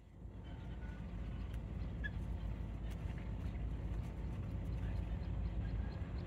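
Dogs growling as they wrestle in a play-fight: a low, rough growl that goes on without pause.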